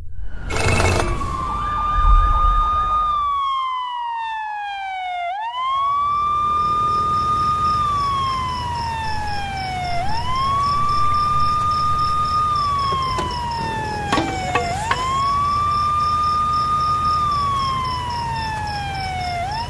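Siren wailing in slow cycles, each rising quickly to a held high note and then sliding down, about four times at roughly five-second intervals, over a low rumble. A steady high-pitched tone joins it about six seconds in.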